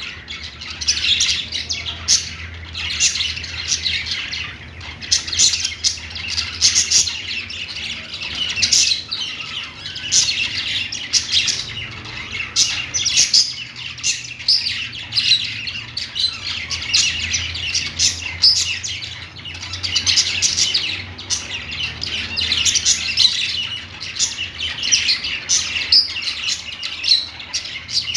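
Pet budgerigars chattering and warbling nonstop, a dense run of quick chirps, clicks and short squawks.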